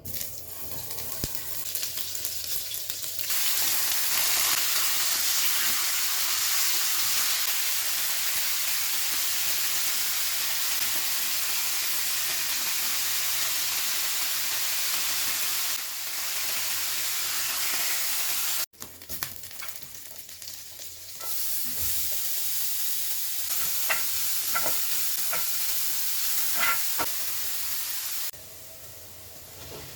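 Food sizzling as it fries in a hot pan, in several sections that change abruptly in level, with a few sharp clicks near the end.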